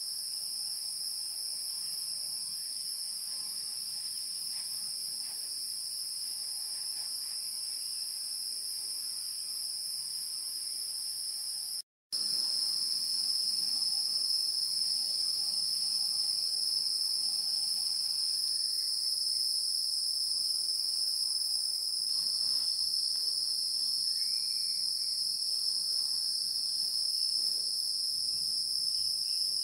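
A steady, high-pitched insect chorus chirring without a break. The sound cuts out for a split second about twelve seconds in and comes back a little louder.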